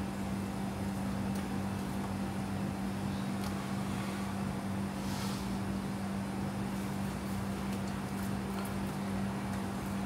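Steady mechanical hum with a constant background hiss, and a few faint light sounds of sliced shallots, ginger and chili being pushed off a ceramic plate into a metal pot, the clearest about five seconds in.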